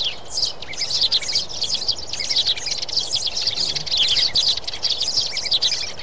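Many sparrows chirping in a dense, continuous chatter of quick, overlapping chirps.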